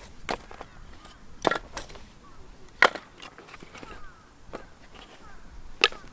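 Irregular sharp knocks and clacks, about six in all, the loudest about three seconds in and near the end.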